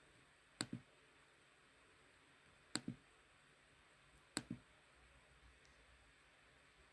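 Computer mouse clicking three times, each click a quick double tick of the button pressing and releasing, about two seconds apart, over near-silent room tone.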